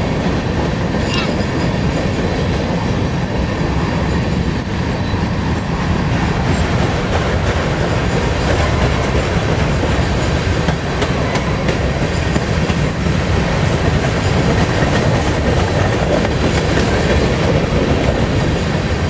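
Covered hopper cars of a freight grain train rolling steadily past on the rails: a continuous rumble of wheels on track with clicking of wheels over rail joints.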